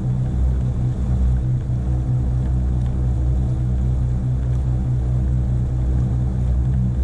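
Motor cruiser's engine running steadily as the boat moves along, a low, even drone.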